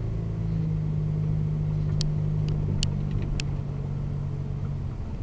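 Car engine running steadily, a low even hum heard from inside the cabin, with three short sharp clicks a couple of seconds in; the engine note eases slightly near the end.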